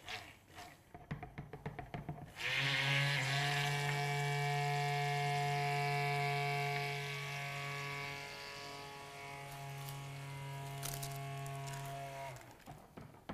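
Hand-held immersion (stick) blender running in a bowl of chocolate ganache, a steady motor hum. It starts about two seconds in, gets quieter about halfway through, and cuts off shortly before the end, with a few light knocks before it starts.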